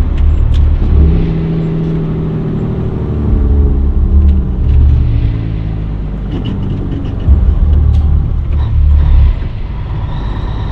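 Cabover Peterbilt 362's diesel engine heard from inside the cab as the truck drives and slows. The engine's pitch falls slowly over several seconds, over a heavy low rumble that rises and falls.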